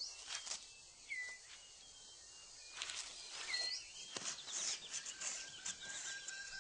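New Guinea rainforest ambience. Short bird calls that glide in pitch repeat every second or so, with brief rustling clicks between them. A high hiss builds about halfway through, and a steady thin whistle comes in near the end.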